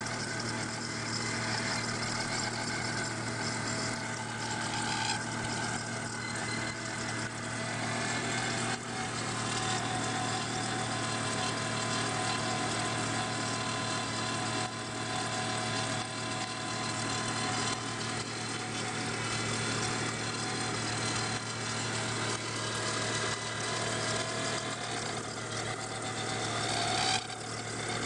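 Volvo 850 inline five-cylinder engine idling just after a cold start, with a steady whine over the idle from a failing water pump.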